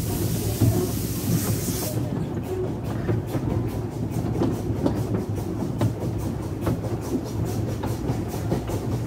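Steam train running, heard from a passenger carriage window: a steady low rumble with a regular beat of about five strokes a second. A hissing rush sits over it for the first two seconds.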